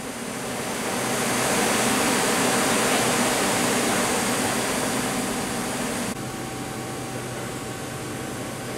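Steady rushing noise of shop air-handling machinery, such as a spray booth's exhaust fan. It swells over the first two seconds, eases off, then drops abruptly about six seconds in to a lower steady hum.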